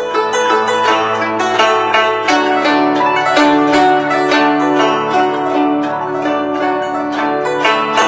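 Guzheng (Chinese plucked zither) played solo: a fast run of plucked notes ringing over held low notes.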